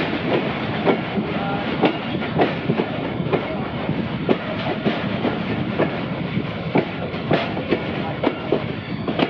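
Passenger train coach rolling slowly over jointed track, its wheels clacking irregularly about once or twice a second over a steady running rumble.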